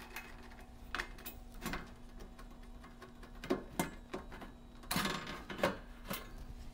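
Scattered light clicks and metallic knocks as a screwdriver works out the last screws of a furnace's sheet-metal back panel, then the panel knocking and rattling as it is lifted off, a little after the middle.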